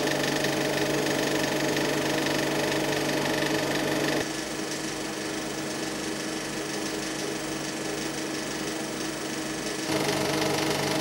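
Film projector running: a steady mechanical whirr with a held hum. It drops a little in level about four seconds in and comes back up near the end.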